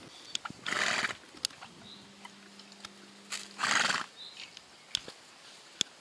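A horse grazing close by: two loud breathy snorts, one about a second in and one around three and a half seconds in, with scattered sharp clicks of grass being torn and chewed.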